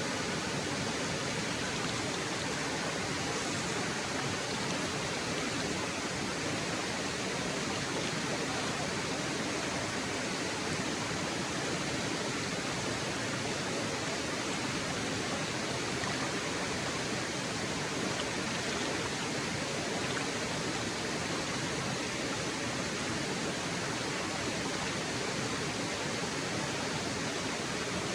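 Waterfall rushing: a steady, even roar of falling water with no change in level.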